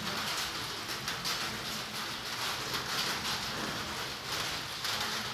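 Steady rain pattering, a dense, even crackle of drops.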